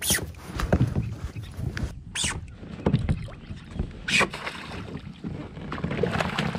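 Knocking, rustling and water sounds from a kayak while a hooked smallmouth bass is fought and reeled in: irregular thumps against the hull and gear, with three short hissing rushes, one at the start, one about two seconds in and one about four seconds in.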